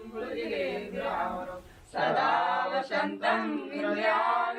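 Vocal music: a voice singing a slow, sustained melody in two long phrases, with a short break about two seconds in.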